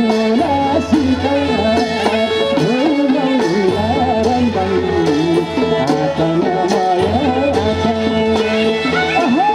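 Live Nepali folk music played loud for dancing: a wavering melody over a steady drone, with drum beats underneath.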